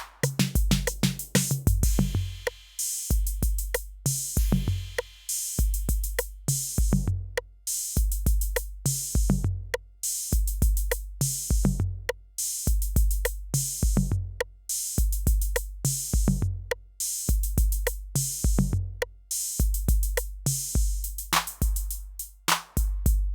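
Roland TR-8 drum machine playing a factory pattern with its TR-808 kit, unprocessed. Long, low 808 bass drum notes ring out under a steady run of hi-hat and cymbal hits.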